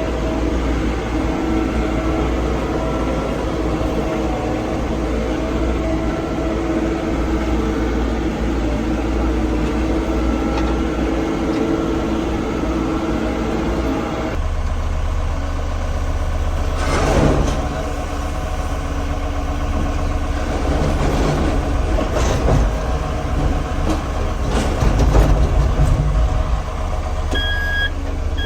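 Caterpillar backhoe loader's diesel engine running steadily; about halfway through its note changes to a deeper rumble, with several sharp knocks from the working machine. Near the end a reversing alarm starts beeping at an even pace.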